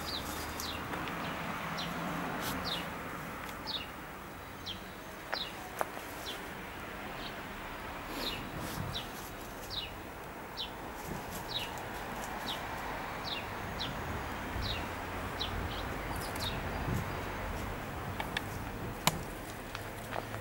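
A small bird chirping over and over, short high notes about one or two a second, over steady outdoor background noise, with a few sharp clicks.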